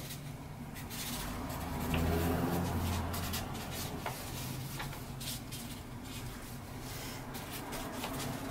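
Sharpie permanent markers scratching and squeaking across paper in short strokes as two people write quickly, over a low steady hum.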